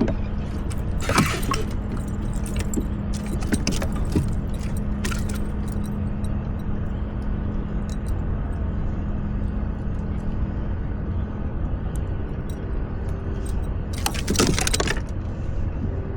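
Metallic jangling and clicking of fishing tackle, loudest about a second in and again about fourteen seconds in, over a steady low rumble with a constant hum.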